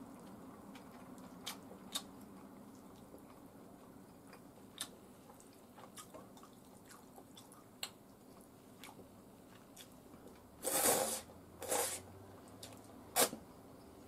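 Cold ramen noodles being slurped, in two noisy pulls about eleven and twelve seconds in. Light clicks of chopsticks against the bowl are scattered through, with a sharper click near the end.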